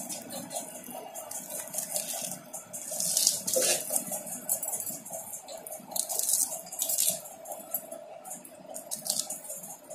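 Hands peeling the tough outer skin off a ripe palmyra palm fruit, the skin and fibres tearing and rustling in irregular scratchy bursts, over a steady background hum.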